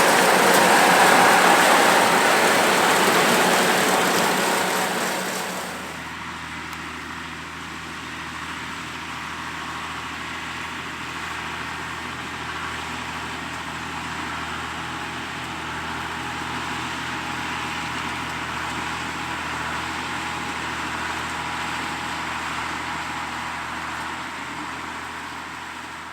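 Oliver 1655 tractor working with a two-row New Idea 324 corn picker: a loud, rushing mechanical din for about the first five seconds, dropping suddenly to a quieter, steady engine hum for the rest.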